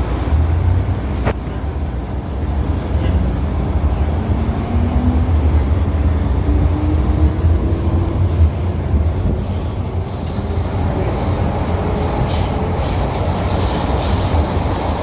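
First-generation MTR M-Train (1979 CM Stock) running at speed with a steady heavy rumble of wheels on rail. A faint whine rises in pitch in the middle, and a hissing rail noise builds over the last third.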